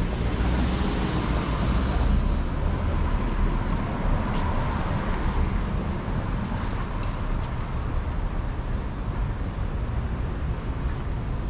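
Road traffic noise on a city street, with a car passing near the start.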